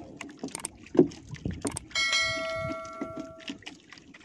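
A single bell-like chime rings about two seconds in and fades out over about a second and a half. It is most likely the sound effect of an on-screen subscribe-bell animation, heard over scattered small knocks and clicks around the wooden boat.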